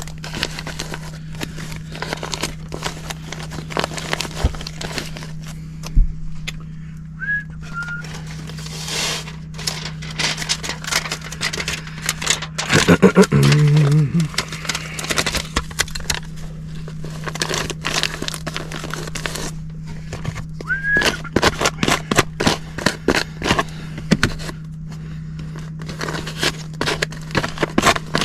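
Work noises: frequent clicks, crackles and rustles of hand work over a steady low hum, with a brief louder pitched sound about 13 seconds in.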